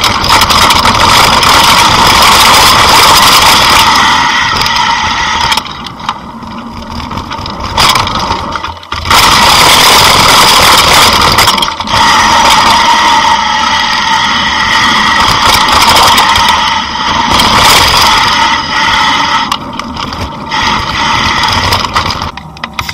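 Mountain bike rolling fast down a dirt and gravel trail, heard from a camera mounted on the bike: a loud continuous rattle and whirr with a high steady buzz, which drops away briefly about six seconds in and again near the end.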